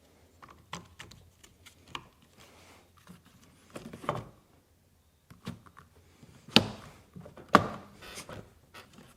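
Scattered clicks and knocks from a car door being put back together, with two louder knocks about a second apart in the second half.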